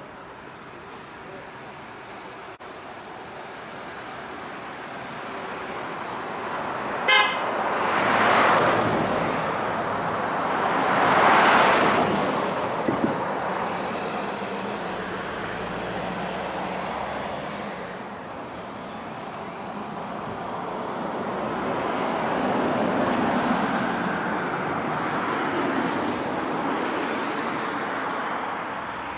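Road traffic: vehicles passing one after another, the nearest swelling up about 8 and 11 seconds in and again around 23 seconds. A brief car-horn toot sounds at about 7 seconds, just before the first pass.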